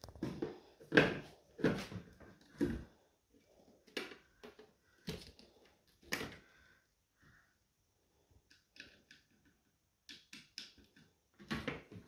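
Sharp clicks and knocks of a flat-screen TV's plastic speaker unit and its cables being handled and pressed into place on the metal back chassis. Several loud knocks come in the first three seconds, then lighter scattered clicks, with another cluster near the end.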